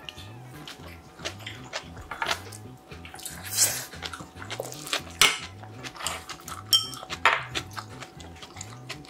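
Metal spoon and chopsticks clinking and scraping against a brass bowl as bibimbap is mixed and scooped up, in irregular sharp clinks and short scrapes, the loudest about five seconds in. Soft background music with a steady beat runs underneath.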